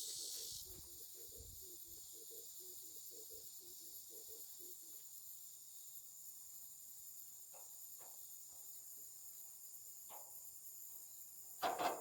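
Insects chirping steadily in a rural outdoor background, faint and high-pitched, with a single thump near the end.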